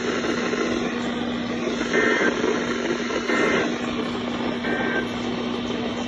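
Weather radio speaker playing the Emergency Alert System end-of-message code: three short bursts of warbling two-tone data about a second apart, marking the end of the flash flood warning. A steady hiss and low hum from the receiver run underneath.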